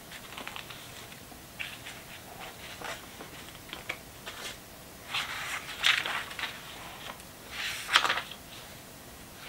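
Pages of an old paper Bible being turned by hand: soft paper rustles throughout, with louder page flips about five to six seconds in and again around eight seconds.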